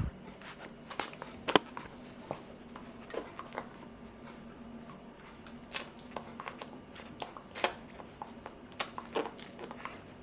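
Puppy sucking milk from a feeding bottle's teat: a run of short, irregular clicks and smacks from its mouth.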